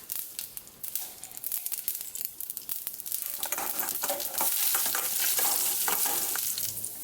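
Tempering spices, mustard seeds, urad dal and chana dal, frying in hot oil in a kadai: a crackling sizzle with many small pops, stirred with a spoon, growing louder about three and a half seconds in.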